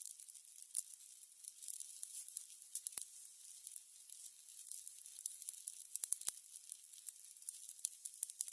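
Burning candles crackling: a soft high hiss dotted with many irregular small pops and snaps, a slightly stronger pop about three seconds in and another around six seconds.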